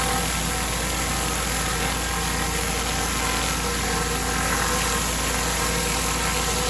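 A pressure washer's engine running steadily under an even hiss, cutting off suddenly at the very end.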